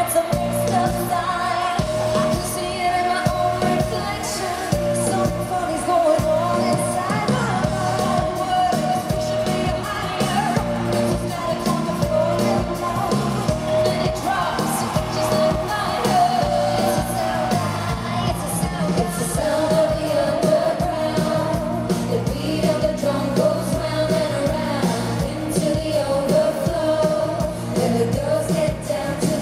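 Live pop music in an arena: female voices sing a melody over an amplified band with a steady bass.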